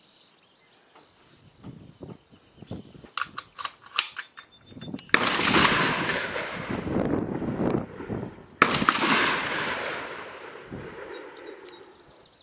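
Two shots from a Nemesis Arms Windrunner .308 rifle, about three and a half seconds apart, each followed by a long echo that dies away over a few seconds. A few sharp clicks come shortly before the first shot.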